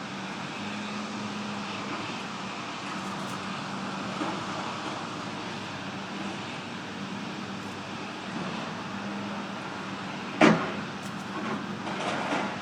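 John Deere backhoe's diesel engine running steadily, with a single loud sharp knock about ten seconds in and some rougher scraping noise near the end.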